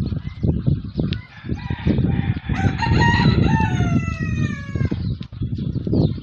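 A desi rooster crows once, a long call starting about two and a half seconds in and dropping in pitch at its end, over a loud low rumble.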